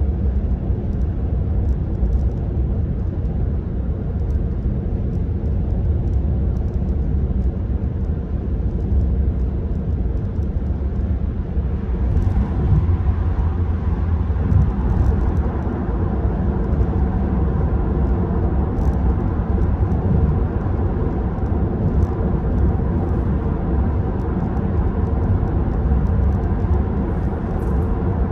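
Steady tyre and road noise with wind inside the cabin of a Tesla Model 3 Performance cruising at freeway speed, a low rumble with no engine sound.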